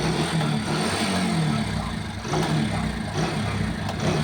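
Mahindra Centuro single-cylinder motorcycle engine running with the rear wheel turning, with occasional knocks from the chain area: the 'kat-kat' sound of a bent chain cover catching the drive chain.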